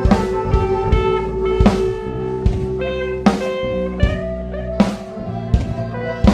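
Instrumental band music with a steady beat: sustained pitched chords over regular drum-like strikes, with no singing.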